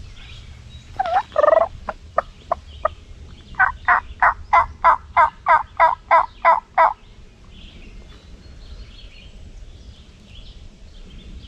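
Turkey calls: one loud call about a second in, a few sharp clucks, then a steady run of about eleven yelps, roughly three a second, that stops suddenly.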